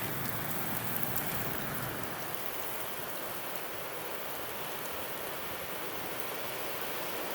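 Heavy rain falling steadily, a dense even hiss with sharp drop ticks near the start.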